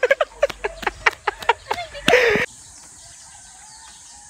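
A man singing a wordless tune in short 'pa-ra-pa-pam' syllables while jogging, ending in a loud breathy outburst. About two and a half seconds in it cuts off suddenly to a steady outdoor background with an even, high insect hiss.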